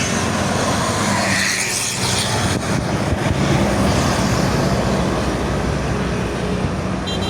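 Bus engine running as it pulls past, a steady low drone over continuous road and tyre noise.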